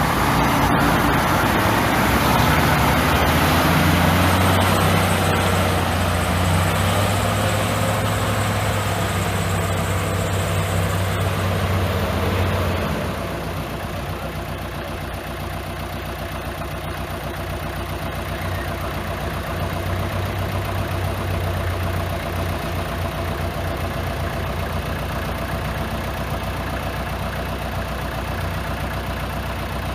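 Heavy diesel engines of earthmoving machinery running: a bulldozer and dump trucks. The engine sound is louder for about the first thirteen seconds, then drops to a lower, steady level.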